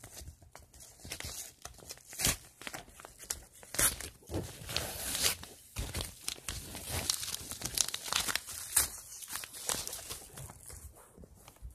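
A yellow padded mailer envelope being torn open by hand: a run of irregular rips and crinkles of the paper and its plastic lining.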